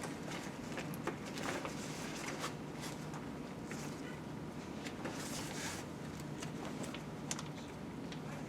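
Room tone with a steady low hum, broken by scattered small clicks and brief rustles, like paper being handled.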